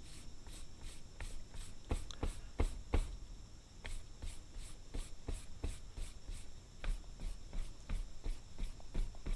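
Hand file scraping along the steel edge of a broadhead in quick, repeated strokes, about two to three a second, honing the cutting edge.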